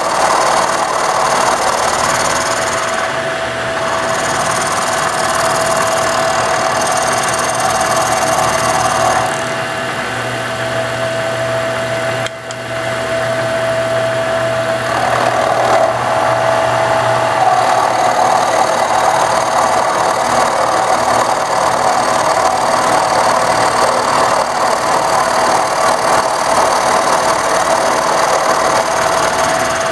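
Milling machine running with an end mill cutting into the laminated wood heel of a banjo neck: a steady whine over the rasp of the cutter chipping wood, with a brief dip about twelve seconds in.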